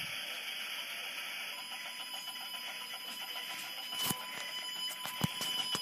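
Faint steady electronic alert tone of an Emergency Alert System required monthly test, coming in about a second and a half in over a steady hiss, with two sharp clicks near the end.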